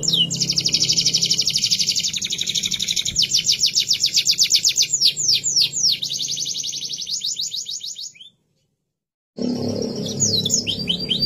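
Domestic canary singing fast rolling trills of rapidly repeated downward-sweeping notes. About eight seconds in the song breaks off into a second of dead silence, then a new trill starts.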